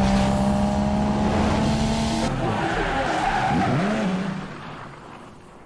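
Race-car sound effect for a video intro: loud engine and tyre noise that holds steady, then fades out over the last second or so.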